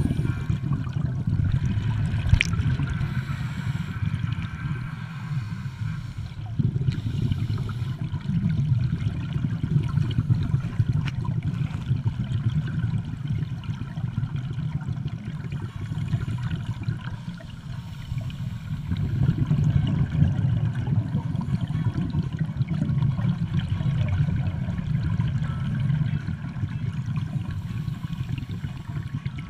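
Underwater sound of scuba breathing: the regulator and exhaled bubbles gurgling and rushing, swelling and fading in long surges.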